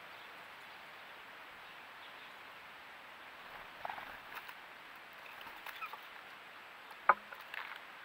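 Blue jay moving on a wooden tray feeder: scattered faint taps and rustles over a steady hiss, with one sharp tap about seven seconds in.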